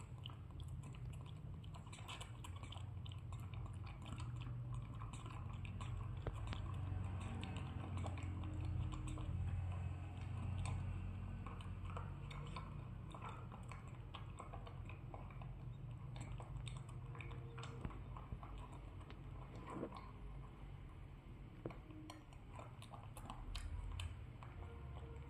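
A young macaque drinking milk from a small carton through a straw: small wet mouth sounds of sucking and chewing on the straw, with scattered light clicks and crackles of the carton in its hands, over a low steady hum.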